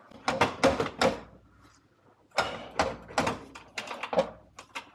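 Irregular metallic clicks and clanks of hand tools working on the exhaust pipe flange and heat exchanger joint: a few knocks at first, then a denser run after a short pause.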